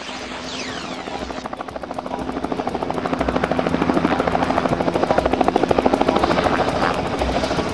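Helicopter hovering just off the ground, its main rotor beating fast and evenly, growing louder over the first few seconds and then holding steady.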